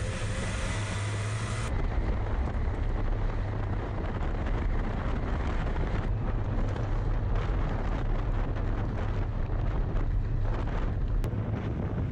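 Lada 4x4 running off-road: steady engine rumble with the crackle of tyres on rough ground and wind buffeting the microphone. The sound changes abruptly near two seconds in.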